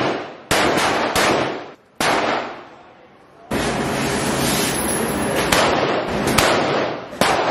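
Gunshots echoing in an indoor shooting range. There are single sharp shots roughly half a second apart in the first two seconds, then, after a short lull, a dense run of shots whose echoes run together for about four seconds.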